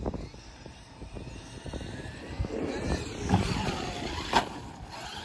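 Electric motor of a Traxxas Mini Maxx RC monster truck on a 3S battery whining as it speeds up, the pitch rising, with tyres on dirt. A sharp knock about four and a half seconds in, as the truck lands after a jump.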